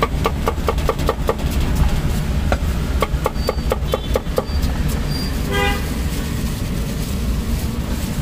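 Steel cleaver chopping on a wooden chopping block in two runs of quick knocks, about four or five a second. A short vehicle horn toots once midway, over a steady low rumble of traffic.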